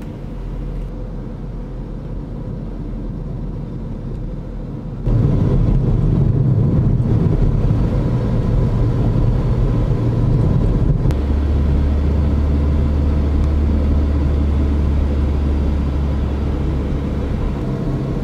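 A car driving, with a steady low engine and road rumble. It jumps abruptly louder about five seconds in and changes again about eleven seconds in, where a deep steady hum takes over.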